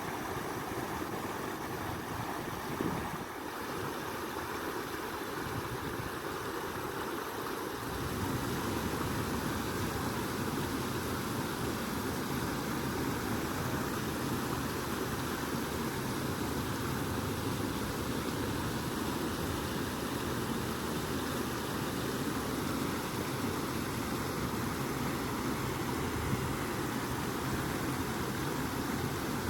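Steady rush of flowing stream water. It grows a little louder and deeper about eight seconds in.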